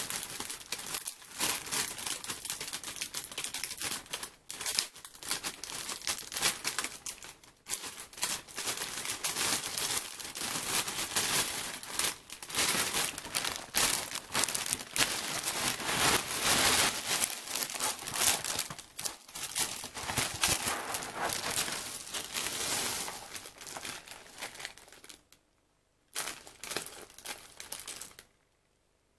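Plastic cereal bag liner crinkling and rustling as it is handled and pulled open. The crinkling stops about 25 s in, comes back briefly, then ends near the end.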